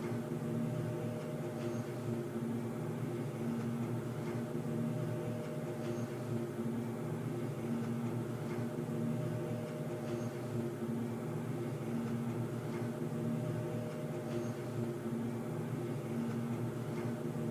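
Underground ambience: a steady low mechanical drone of layered hums, one of which swells and fades every few seconds, with a faint high tick about every four seconds.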